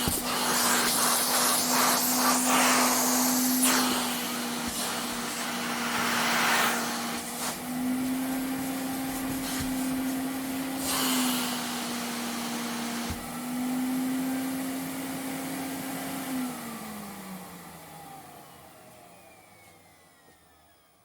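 Vacuum cleaner running, its motor hum with an airy hiss that swells and eases as the suction changes and the pitch steps slightly. About two-thirds of the way through it is switched off and the motor winds down, the hum falling in pitch and fading out.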